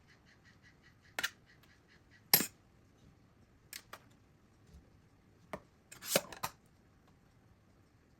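Scattered sharp clicks and knocks, a handful of separate strikes with the loudest a little over two seconds in and a quick cluster about six seconds in. A faint high chirp repeats about four times a second through the first two seconds or so.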